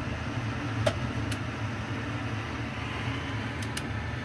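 A steady low mechanical hum, with a few faint clicks about a second in and again near the end.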